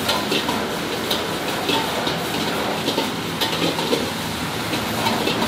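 Steady hiss of food-stall background noise, with frequent light clicks and clatter of utensils scattered through it.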